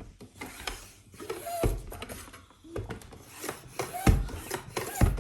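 A bicycle tyre being pumped up by hand to about 35 PSI, a dull thump with each pump stroke, roughly one a second.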